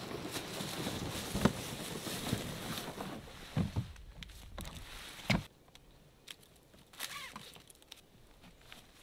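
Rustling and handling of hot-tent fabric and straps, with footsteps in light snow and a few knocks, the sharpest about five seconds in. After that it goes quieter, with scattered small clicks.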